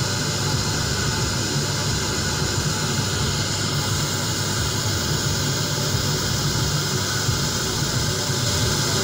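FM radio tuned to 100.6 MHz giving a steady hiss of static, the sign of a distant station's signal too weak to come through clearly.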